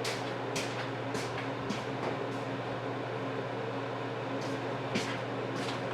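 A few light clicks of drill bits being handled over a steady low background hum.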